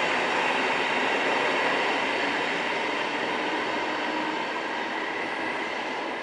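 An NSB electric commuter train departing through an underground station tunnel. The running noise of its wheels and motors echoes, then grows steadily quieter from about two seconds in as the train pulls away.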